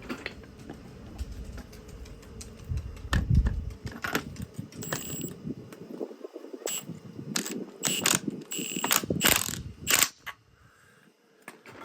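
Irregular metallic clicks and ratcheting from hand tools working on a compressed coil spring and strut assembly, busiest in the second half and stopping about ten seconds in.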